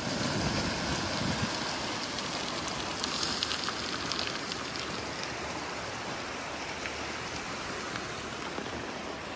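Silt-laden river in flood, rushing fast past an eroding bank: a steady noise of moving water, with a low rumble in the first second or so.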